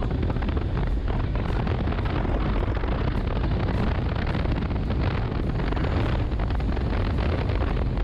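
Steady wind rush and buffeting on an action camera's microphone while a Honda X-Blade's single-cylinder engine runs at cruising speed on a moving motorcycle.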